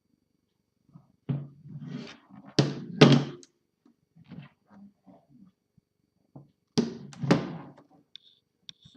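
Knocks and thunks of a typewriter's carrying case being handled, in two clusters: one about a second and a half to three seconds in, with the loudest knock near three seconds, and another around seven seconds.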